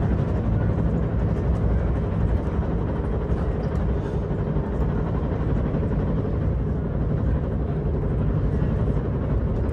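NC Piedmont passenger train coach running at speed, heard from inside the car: a steady low rumble of wheels on the rails and car-body noise.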